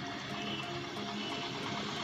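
Quiet background music of short held notes.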